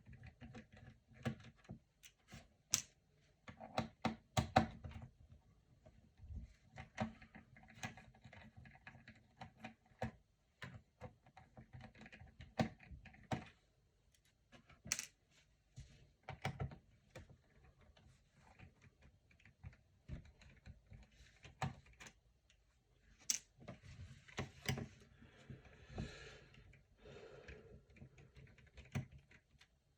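Screwdriver removing the small screws from a laptop's plastic bottom cover: irregular sharp clicks and taps of the bit and tiny screws, with light handling rustle, as the screws are backed out and set aside.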